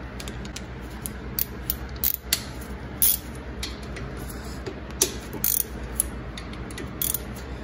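A socket ratchet and a wrench on the brake caliper bolts of a 2016 Mazda 6. There are scattered sharp metal clicks and clinks as the bolts are worked loose, with a steady low hum underneath.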